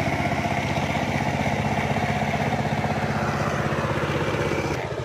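A small engine running steadily with an even, rapid beat.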